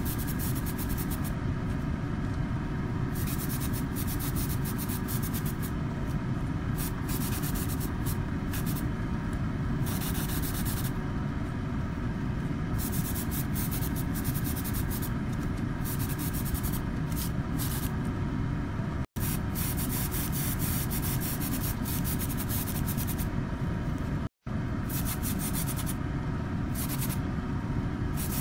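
Airbrush spraying model paint in on-and-off bursts of hiss over a steady motor hum from the painting setup. The sound breaks off twice for a split second.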